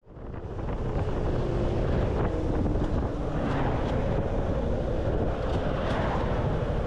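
Motorcycle under way, the engine running steadily beneath wind rushing over the microphone, fading in over about half a second at the start.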